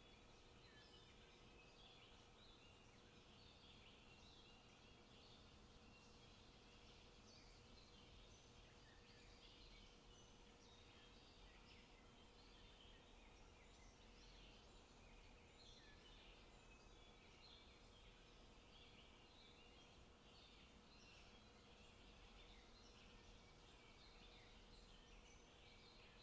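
Faint birdsong from several small forest songbirds, many short chirps and song phrases overlapping without pause, over a faint steady hum.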